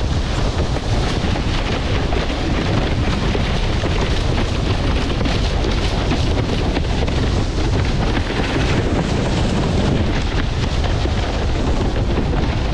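Loud, steady wind rumble buffeting the microphone of a camera on a windsurfer under sail, over the rush of choppy water past the board.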